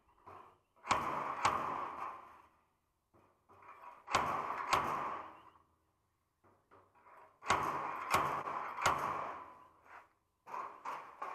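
Hammer blows on sheet-steel panel, each a sharp knock with a short metallic ring: two, then two more, then three, a few seconds apart, with softer taps near the end.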